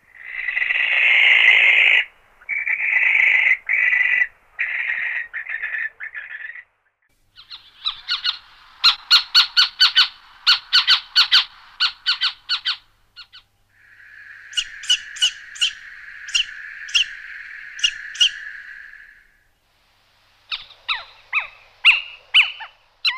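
Barn owl screeching: a series of long, harsh, hissing screams over the first seven seconds. Then little owl calls: rapid runs of sharp notes and, near the end, a string of short falling calls.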